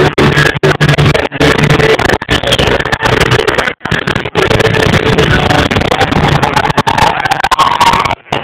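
Live amplified J-pop concert music over a large PA, recorded on a phone near overload so that it sounds distorted. The sound cuts out briefly several times.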